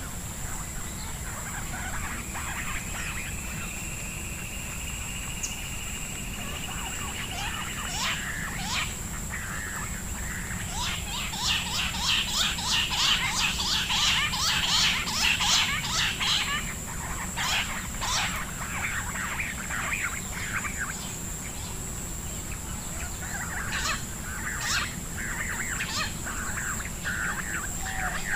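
Bush quail calling: a long rising whistled note in the first few seconds, then rapid chattering series of short notes, densest in the middle and returning near the end. A steady high-pitched whine runs underneath.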